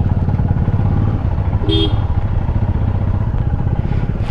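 Royal Enfield Himalayan's single-cylinder engine running steadily as the motorcycle rides off, with a dense low pulsing from its firing strokes. A brief high-pitched sound cuts in a little under halfway through.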